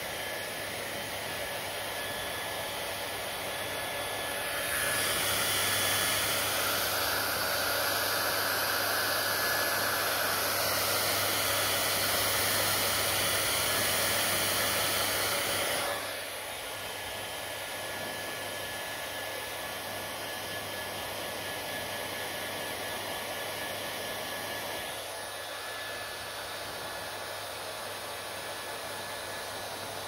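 Hand-held hair dryer blowing a steady rush of air. The rush grows louder and brighter about five seconds in and drops back about sixteen seconds in.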